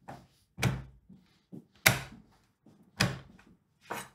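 Chef's knife knocking on a wooden cutting board while crushing halved garlic cloves: a series of sharp knocks about a second apart, with a few lighter taps in between.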